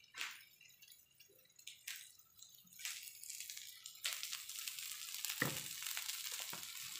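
A few light clicks, then a steady sizzling hiss that starts suddenly about four seconds in as oil is poured over mustard-coated cauliflower pieces frying on a hot iron tawa.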